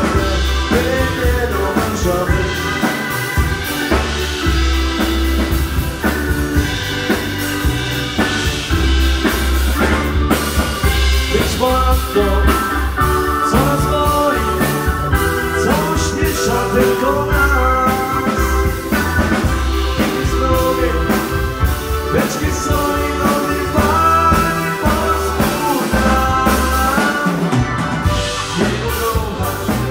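Live band playing an instrumental passage of an upbeat dance song: drum kit and a pulsing bass under a gliding lead melody.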